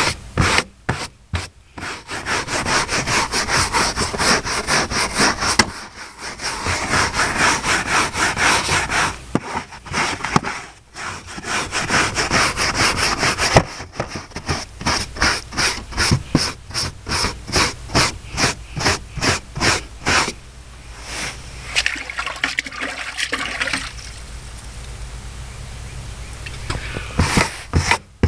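Truck floor carpet being scrubbed by hand in quick back-and-forth strokes, about three or four a second, with a couple of short pauses; the strokes soften into a gentler, more even scrubbing for several seconds near the end.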